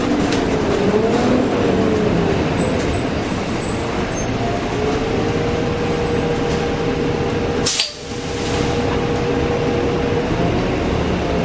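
Dennis Dragon double-decker bus's Cummins M11 diesel engine running under way, recorded close to the radiator, with a whining tone that wavers for the first couple of seconds and then holds steady. A single sharp click comes about eight seconds in, with a brief dip in the sound just after it.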